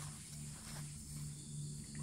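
Steady high chirring of insects, with a low hum pulsing on and off a little over twice a second.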